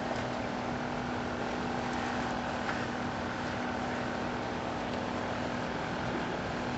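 A steady mechanical hum with a constant low drone, unchanging throughout, with a few faint ticks.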